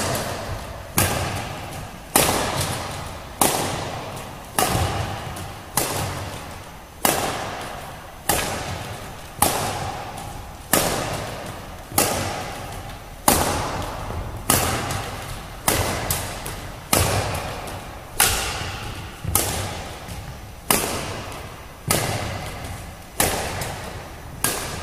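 A badminton racket strikes a shuttlecock hung from a training rod over and over, about one hit every 1.2 seconds, roughly twenty in all. Each sharp hit rings out in the echo of a large sports hall.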